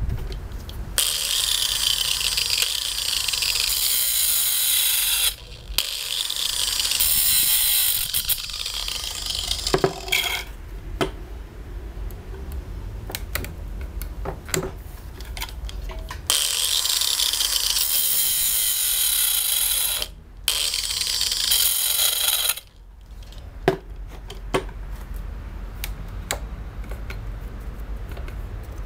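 Chainsaw chain pulled by hand along its bar, the steel links and cutters rattling and clicking over the bar rails in long stretches with short pauses, then a few scattered clicks. The chain is being advanced to bring the next cutter round for sharpening.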